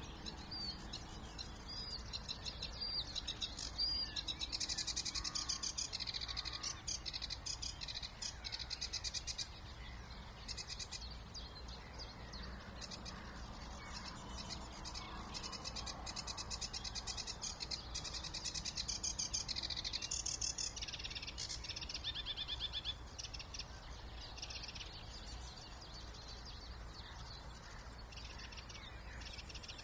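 Several songbirds singing at once in spring, with fast chattering phrases and trills, louder in two stretches, over a steady low rumble.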